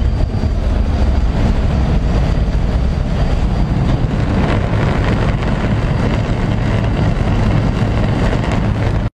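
Loud, steady drone of a small propeller plane's engine mixed with wind rush, heard inside the cabin.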